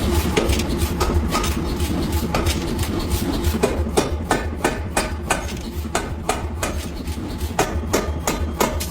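Hammer blows on metal in forging, a few per second and coming faster in the second half, some strikes leaving a short metallic ring. A steady low machine hum runs underneath.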